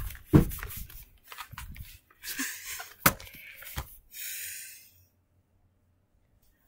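Handling noise as a webcam and plush toys are moved about: rustling, thumps and two sharp knocks, the first just after the start and the second about three seconds in. A short rushing noise follows about four seconds in, then it goes silent for the last second and a half.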